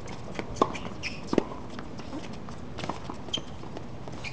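Tennis ball struck by rackets in a doubles rally on a hard court: sharp pops, loudest about half a second and a second and a half in, with quick footsteps and scuffs of players moving between shots.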